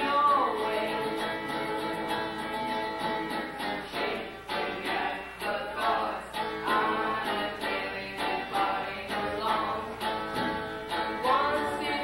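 Band playing a song live, with a singer's voice over the instruments, some notes sliding in pitch.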